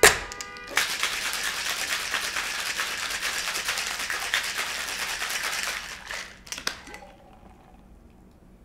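Ice rattling hard in a Boston shaker (metal tin over a pint mixing glass) as a cocktail is shaken for about five seconds, starting just after a ringing clink as the tin is seated on the glass. The shaking stops around six seconds in, followed by a few knocks as the shaker is opened.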